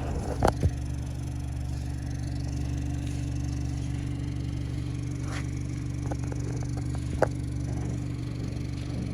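A car engine idling with a steady low hum, with a few short clicks and knocks: one about half a second in and two more later on.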